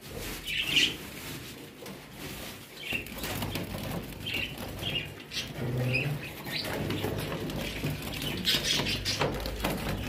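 Small caged Bengalese finches giving short, scattered chirps, over low rustling and handling noise.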